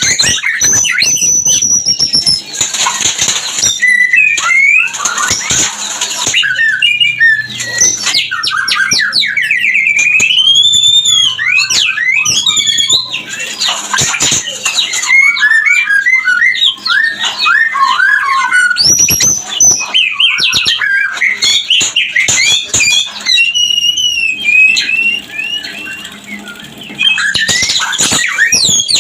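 White-rumped shamas (murai batu) singing and calling in a mating display: a rapid, varied run of whistles, fast trills and sliding notes mixed with harsh squawking calls.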